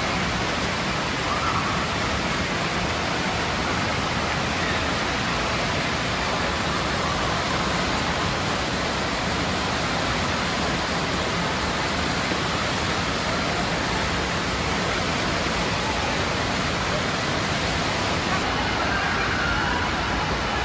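Steady rushing of water in an indoor water park, with faint voices carrying through the echoing hall.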